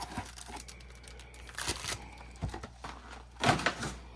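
Bowman Platinum baseball card pack wrappers crinkling and rustling as they are handled, in small scattered crackles with a louder crinkle about three and a half seconds in.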